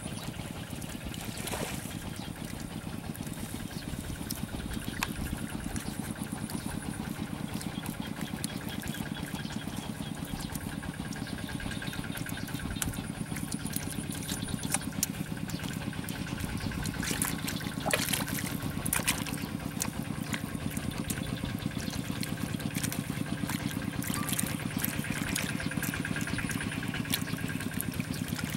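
An engine running steadily at an even idle, with scattered wet slaps and squelches of hands working mud and water.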